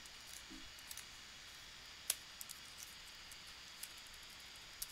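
Faint computer-keyboard keystrokes: a few scattered clicks, one sharper about two seconds in, over a low steady hiss.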